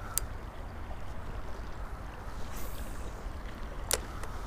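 Wind rumbling on the microphone, with two sharp clicks, one just after the start and one near the end.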